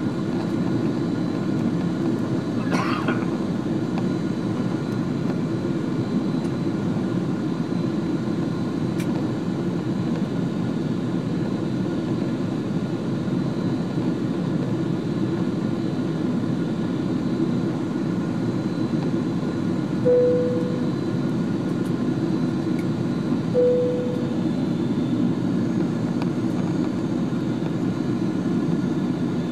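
Steady low cabin drone of a Boeing 777-200 airliner in flight, heard from a window seat over the wing. About two-thirds of the way through, two short single-note cabin chimes sound about three and a half seconds apart.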